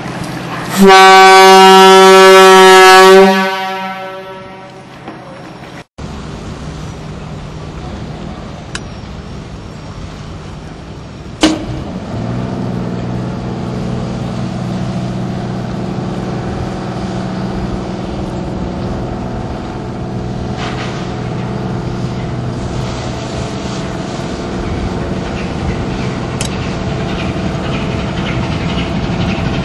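Ship's horn on the old pilot cutter Castor: one long, loud, deep blast of about two and a half seconds. After a cut, a boat engine runs with a steady low drone, with one sharp knock partway through.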